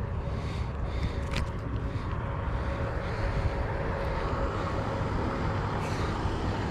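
Steady low outdoor rumble with a faint hum, broken by a couple of faint clicks.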